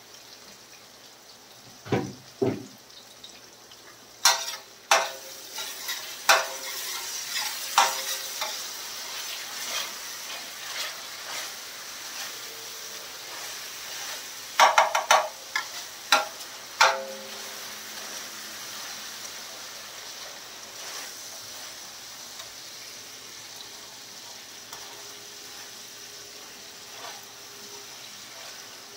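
Chopped tomatoes, garlic and green chillies frying in oil on a large stainless steel tawa, with a steady sizzle. A metal slotted spatula stirs the mix and scrapes and knocks against the pan: sharp strokes scattered through the first half, a quick cluster around the middle, then only the sizzle.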